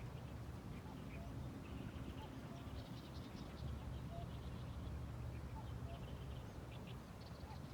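Birds calling: repeated bursts of short, fast chattering notes, with a few lower single notes in between, over a steady low rumble.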